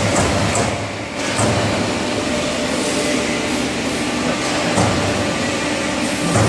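Euromac MTX Plus CNC punching machine at work: the punch head strikes the sheet metal in a fast, continuous run of strokes while the table shifts the sheet, giving a steady mechanical clatter with a brief lull about a second in.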